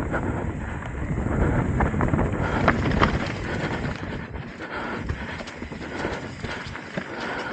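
Trek Top Fuel 8 mountain bike descending singletrack at speed: tyres rumbling over dirt and rock, with the chain and bike rattling and clattering, and a few sharp knocks about three seconds in.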